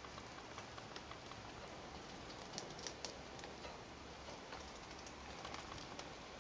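Faint, irregular light clicks and scratches of pet rats climbing about a wire cage, over a steady low hiss, with a few louder clicks about halfway through.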